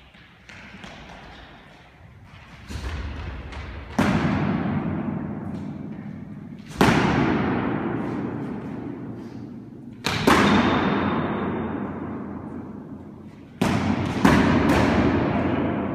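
Practice swords striking during sparring in a racquetball court: a few hard hits several seconds apart, each followed by a long echo. Two hits land close together near the end.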